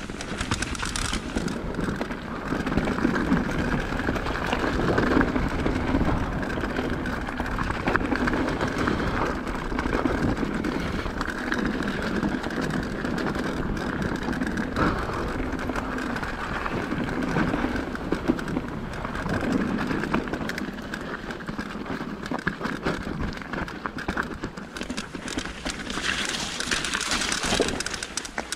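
Mountain bike descending a rough dirt trail: steady tyre noise over the ground with the bike rattling and clattering, swelling and easing with the terrain.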